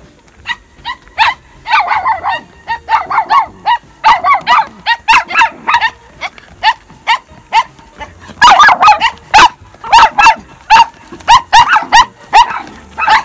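A dog barking over and over in quick runs of short barks, loudest from about eight seconds in.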